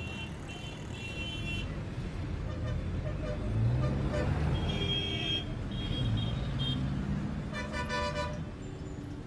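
Road traffic: vehicle engines running and passing, with repeated horn honks, the loudest a short blast about eight seconds in.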